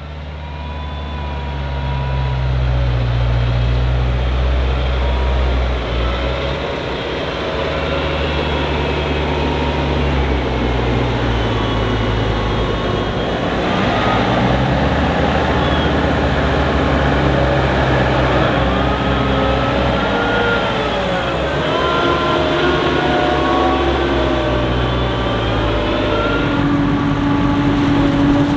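Engines of maize-harvest machinery running: a forage harvester and tractors, with a steady low hum and several higher notes that rise and fall as the machines work. It fades in at the start.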